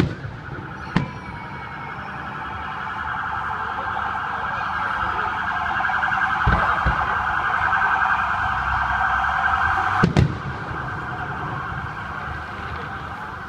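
Fireworks going off: sharp bangs at the start, about a second in and about ten seconds in, with a dull thud midway. Under them a loud, steady warbling tone, alarm-like, lasts almost the whole time.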